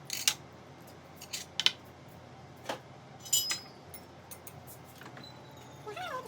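Utensils clicking and clinking against dishes during a meal: several sharp clicks and one brighter, ringing clink a little past the three-second mark.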